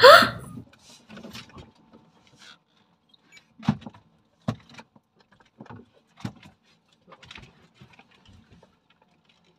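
A short rising squeal at the very start, then scattered sharp knocks and thumps from handling rods, line and a fresh catch on a small fishing boat, the loudest about four seconds in and again half a second later.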